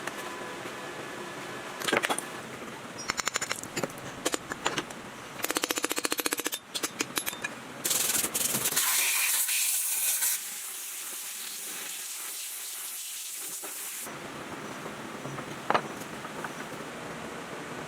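Workshop sounds of engine restoration: sharp knocks and rapid rattling from hand and power tools, then a loud hiss of spray about halfway through, before a steadier, quieter working noise with a single sharp click near the end.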